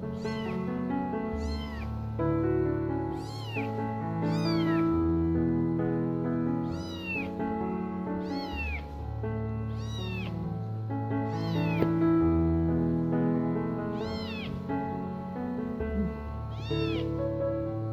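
Kitten meowing about ten times in short, high cries that rise and fall, crying out in distress as tweezers dig a botfly (Cuterebra) larva out of a warble on its head. Background music with sustained notes plays underneath.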